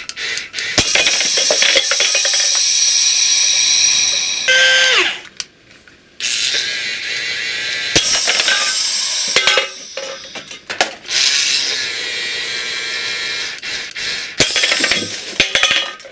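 Small electric motors of a cardboard toy tank whirring, winding down with a falling pitch about five seconds in. A sharp crack comes around eight seconds in as the tank fires and aluminium cans are knocked down, and the whirring resumes after it.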